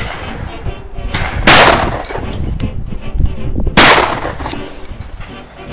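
Two shotgun shots from an over-and-under, one about a second and a half in and the second a little over two seconds later, each a sharp blast with a short fading tail.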